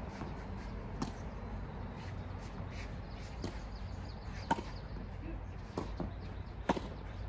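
Tennis ball struck by rackets and bouncing on the court during a rally: a handful of sharp, single pops a second or two apart, the loudest about four and a half and nearly seven seconds in.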